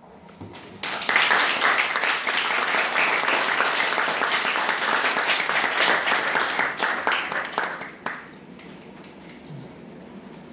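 Audience applauding, starting about a second in and dying away about eight seconds in.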